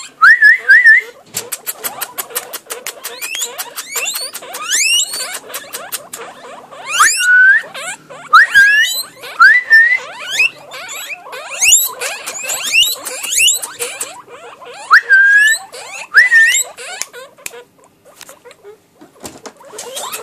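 Guinea pigs wheeking: repeated short squeals that sweep sharply upward, some ending in a held whistle, coming in clusters. A fast run of clicks comes about a second in.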